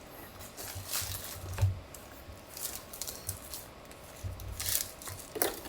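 Keyboard being lifted out of its box and packaging by hand: scattered soft rustles, scrapes and light knocks, with a small cluster of them near the end.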